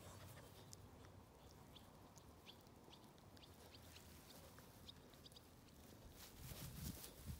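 Faint crackling and rustling of a puppy chewing and tearing at a clump of grass, with scattered small ticks and a slightly louder rustle near the end.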